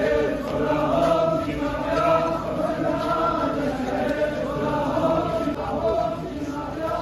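A large crowd of men chanting a mourning lament together in unison, in repeated phrases that rise and fall.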